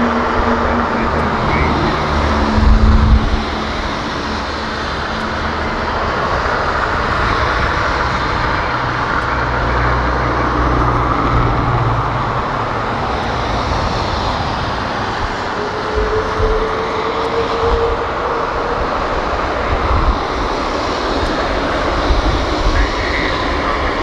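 Airbus A330 freighter's twin jet engines running up for takeoff as it starts its roll on a wet runway: a steady, loud noise. There is a heavy low rumble two to three seconds in, and a faint rising whine about two thirds of the way through.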